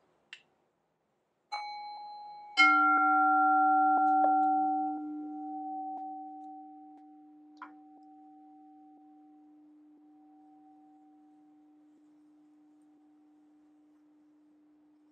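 Two singing bowls struck one after the other: a higher-pitched one about a second and a half in, then a lower, louder one a second later. The lower bowl's tone rings on, slowly fading away. A faint click near the middle.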